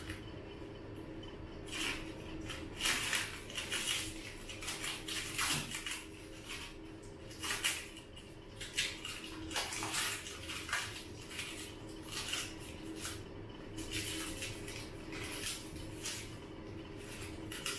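Plastic wrap and cardboard packing crinkling and rustling in irregular bursts as they are handled and pulled off a new bicycle, over a steady low hum.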